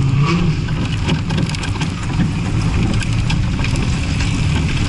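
Car engine running steadily at low revs, heard from inside the moving car, with a continuous low rumble of engine and road noise and scattered light clicks.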